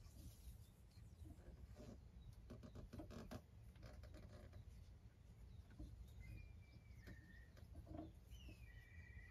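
Faint bird calls: in the second half, two short whistled calls that each step down in pitch, over light scattered taps and rustles and a steady low rumble.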